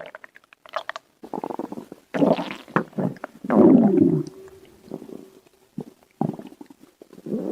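Stomach growling: a string of irregular gurgling rumbles. The loudest and longest comes about halfway through, a drawn-out growl that slides in pitch and holds a steady tone before fading. More short gurgles follow near the end.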